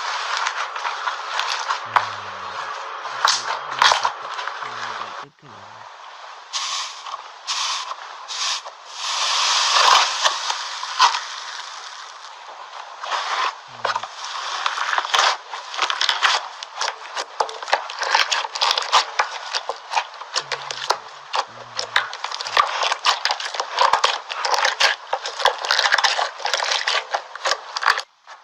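Slime being handled and squeezed, giving a dense, irregular stream of crackling and popping clicks.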